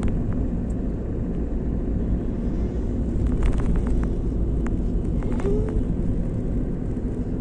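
Steady road and engine noise of a moving car heard inside the cabin, a low rumble, with a few faint clicks a little past halfway through.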